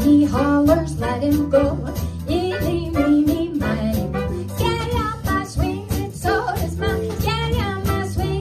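Swing jazz playing: a steady beat of short drum strokes over a bass line, with a melody on top.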